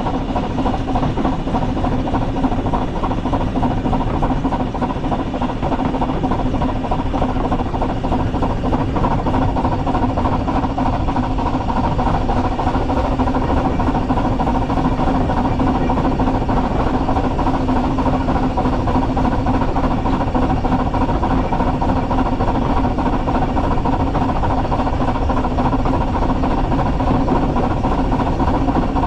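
Narrow-gauge steam locomotive running along the line, heard from a camera mounted on the engine itself: a steady, loud rumble of running gear and wheels on rail with a constant hum.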